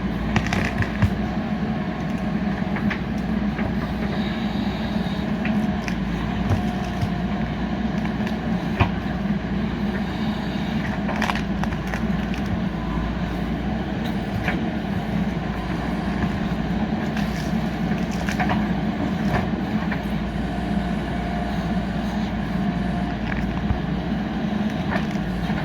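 JCB 3DX backhoe loader's diesel engine running steadily under work, with scattered short knocks and clicks.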